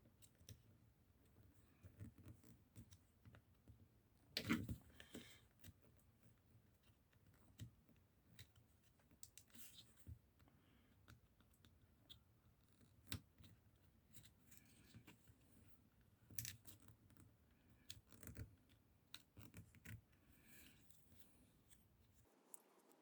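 Faint, scattered clicks, taps and small scrapes of small plastic and metal parts being handled, from a washing machine door interlock and catch being worked on, with a louder knock about four and a half seconds in.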